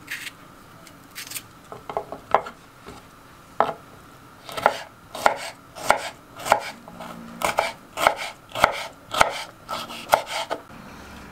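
Kitchen knife chopping a red bell pepper on a wooden cutting board: sharp knocks of the blade on the board, a few scattered ones at first, then a steadier run of about two a second from about halfway in.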